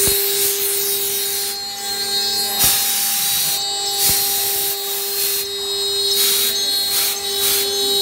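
CNC router spindle whining at a steady pitch while its bit cuts into MDF, with the cutting hiss swelling and fading as the bit moves along the cut. A few sharp clicks come through.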